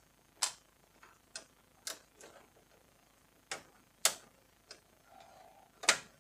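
Irregular sharp clicks and taps, about eight of them, as a hand screwdriver works at the screws and knocks against the plastic frame of a Canon iR2018 copier; the loudest come about four seconds in and near the end.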